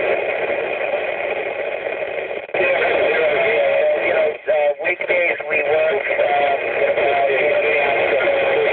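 Wouxun KG-UV920R transceiver's speaker receiving the International Space Station's 2-metre FM downlink: a noisy, hissing signal with warbling, garbled voice-like tones and brief dropouts a little after four seconds as the signal fades.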